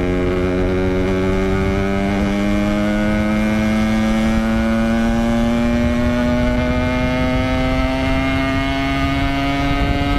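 Yamaha RX-King 135cc two-stroke single-cylinder motorcycle engine running under way through an aftermarket 'Packing Power' exhaust, its pitch climbing slowly and steadily as the bike gains speed.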